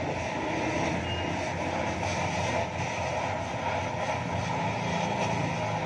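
Steady motor drone with a low hum, holding an even level without a break.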